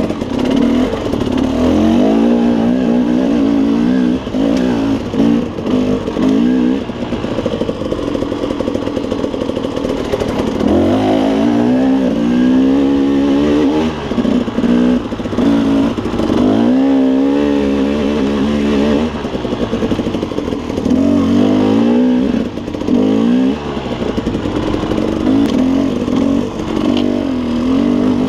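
KTM 300 two-stroke dirt bike engine under way on rough single track, its pitch rising and falling several times as the throttle is opened and closed.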